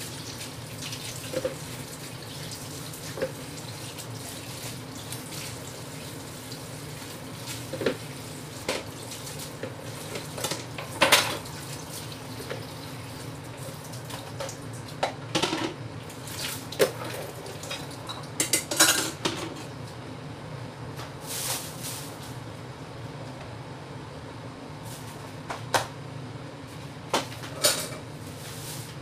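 Peeled vegetables being washed at a kitchen sink: water running from the tap, with scattered knocks and clatter of vegetables and a plastic colander. The loudest are a sharp knock about eleven seconds in and a clatter around nineteen seconds in.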